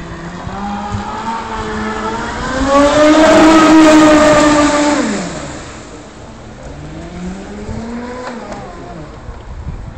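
Hype Surge Crusher RC catamaran's E-MAX brushless outrunner motor and propeller whining at high speed as the boat runs close past. The whine climbs in pitch and grows loud about three seconds in, then drops in pitch as it passes and fades. A second, fainter rise and fall follows near the end.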